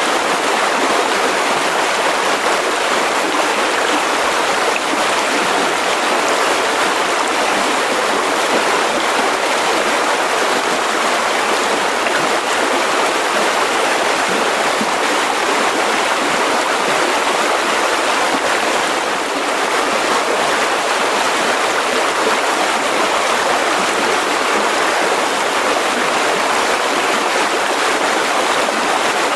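Mountain river rushing over rocks: a steady, unbroken rush of water.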